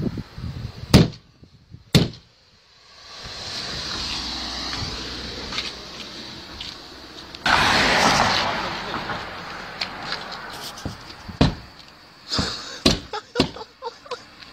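Sharp knocks of a hard object against a car's side window glass: two single knocks near the start, then a run of quicker taps near the end. About seven and a half seconds in there is a rush of noise lasting about a second and a half.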